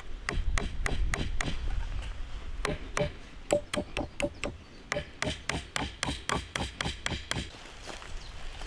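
A fast run of sharp knocks from a hand tool striking, about four a second, some with a short ring. They stop near the end.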